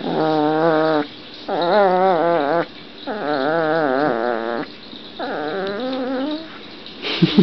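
Young puppy growling in its sleep: four drawn-out, wavering growls, each about a second long, with short pauses between them.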